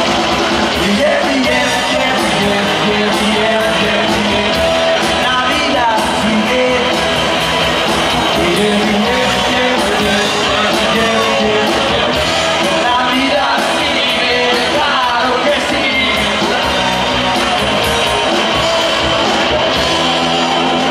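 Live rock band playing: drums, electric and acoustic guitars and bass, with men singing the lead vocal.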